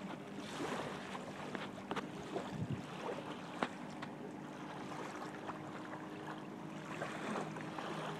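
Wind noise on the microphone over the low steady hum of a distant engine, with a few sharp knocks, the loudest about three and a half seconds in.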